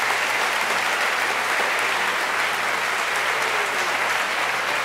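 Audience of students applauding steadily.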